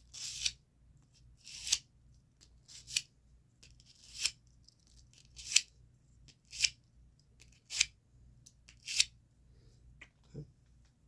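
Steel knife blade drawn across a sharpener in repeated scraping strokes, about eight of them a little over a second apart.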